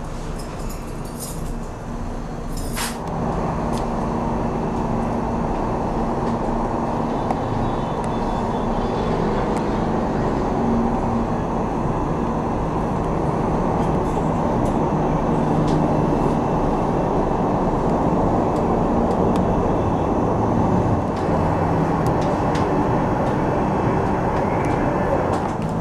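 Steady rumble and low hum inside a moving aerial tram cabin. A sharp click comes about three seconds in, and the rumble grows louder just after it.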